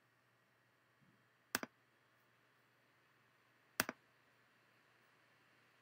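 Two quick double-clicks of a computer mouse, about two seconds apart, over faint room hiss.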